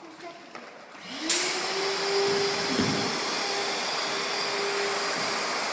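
A small electric motor switches on about a second in. Its whine rises quickly to a steady pitch, then it keeps running with a steady hiss.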